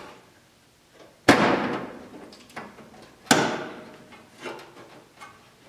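Two loud metallic clanks about two seconds apart, each ringing briefly, with a few lighter knocks in between: tools or metal parts being handled on a car's bare steel floor pan.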